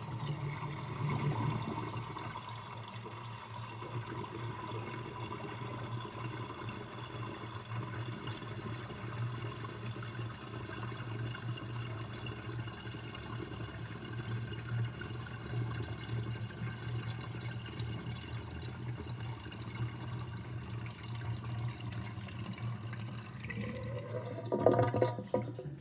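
Kitchen sink water draining through a sink drain basket, gurgling steadily. About a second before the end there is a rising gurgle and the loudest surge, and then the flow cuts off suddenly.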